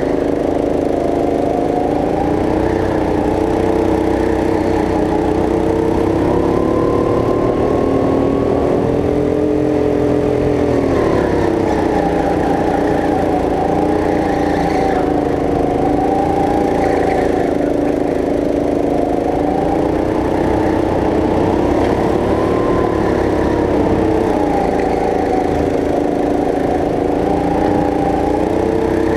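Go-kart's small engine running hard as the kart laps, its pitch climbing and dropping as it speeds up on the straights and slows for the corners; a long rise about a third of the way in ends in a sudden drop.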